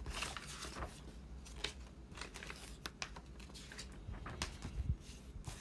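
Faint scattered clicks and light rustling, with a dull low thump a little before the end.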